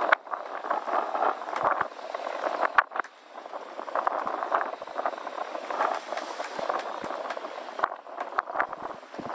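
Strong wind buffeting the microphone in about 20-knot winds at sea, a rough, gusting rush with scattered short clicks.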